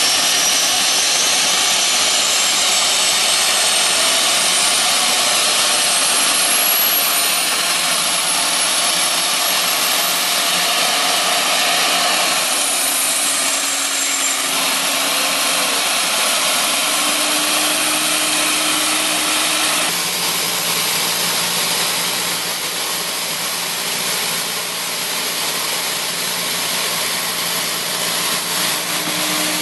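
Helicopter turboshaft engine in a car spooling up, a high whine rising steadily in pitch over the first ten seconds or so, then running steadily with a rushing sound and a low hum.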